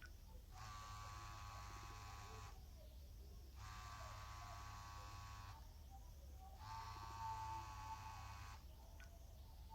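Philips 530 mobile phone sounding a faint buzzing ring three times, each buzz a steady tone about two seconds long with about a second's pause between.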